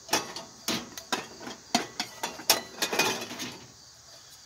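Aluminum Boy Scout cook kit pieces clinking and knocking together as they are handled, a quick series of sharp metal clinks that stops about three and a half seconds in.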